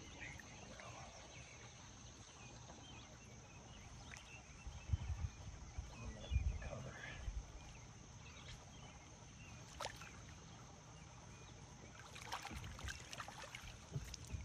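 Quiet ambience of a fish being released by hand over the side of a boat: faint water sloshing and a few low bumps against the hull, over a steady faint high hiss.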